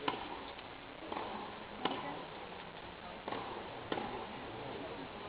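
Tennis practice rally: a tennis ball struck back and forth with rackets, heard as several sharp pops a second or two apart.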